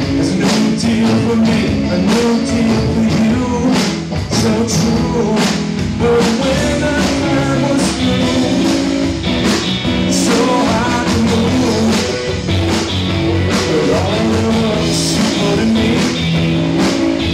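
A rock band playing live, with two electric guitars, an electric bass and a drum kit keeping a steady beat.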